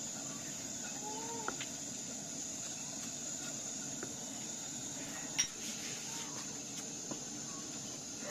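A wooden spatula stirring rose petals in a pot, with a few light knocks, the sharpest about five seconds in. Behind it runs a steady high insect drone, and there is a short bird call about a second in.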